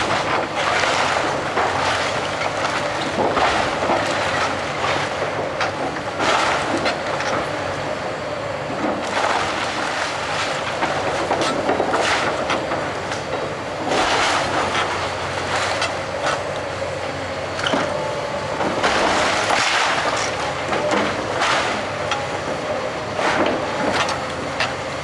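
Komatsu hydraulic excavator working a house demolition: its diesel engine runs steadily while repeated clanks and crashes of the bucket and breaking debris come every second or two.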